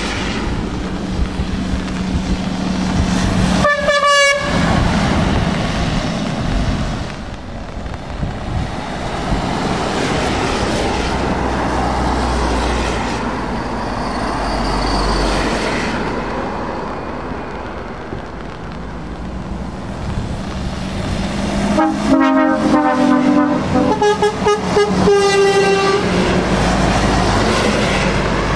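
Trucks and vans passing on a wet road, their tyres hissing on the wet surface, with truck horns sounding: one short blast about four seconds in, then several horn blasts on different notes from about twenty-two to twenty-six seconds in.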